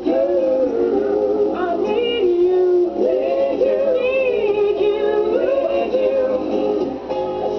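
A vocal group singing a song live through a PA, several voices held together in harmony, with sustained notes that slide between pitches.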